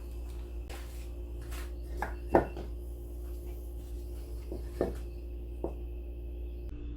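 A few light knocks and clicks of something being handled, over a steady low hum; the loudest knock comes a little over two seconds in.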